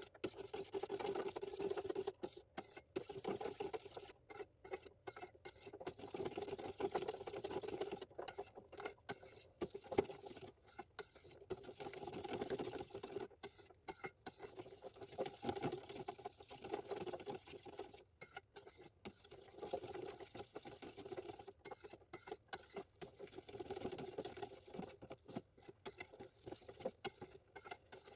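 A metal spoon stirring a thick cream and condensed-milk mixture in a stainless steel pot, scraping and swishing in repeated strokes about every two seconds.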